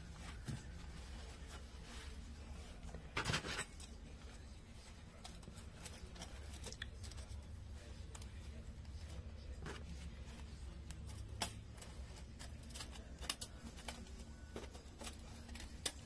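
Hands handling denim on a small metal darning loom: scattered light clicks of the loom's wire hooks and rustling of the fabric, with a louder rustle about three seconds in. A low steady hum runs underneath.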